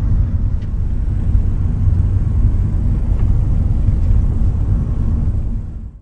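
Steady low rumble of a car driving, heard from inside the cabin; it fades out near the end.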